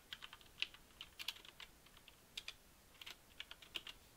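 Faint typing on a computer keyboard: a quick, irregular run of keystroke clicks.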